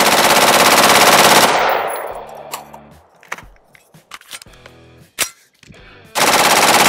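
AR-15 with a nitride-treated barrel firing full auto: a burst of about a second and a half that dies away slowly, then a few sharp clicks as the rifle is handled, then a second burst near the end. The short, broken-off bursts go with the repeated malfunctions the rifle is having during this test.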